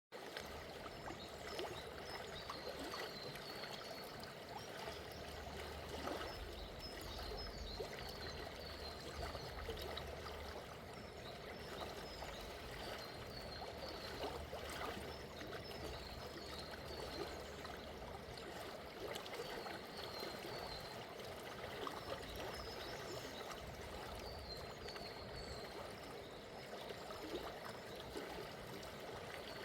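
River with a gentle current flowing steadily, a continuous babbling of water. Over it a small bird repeats short, high chirps in little runs every few seconds.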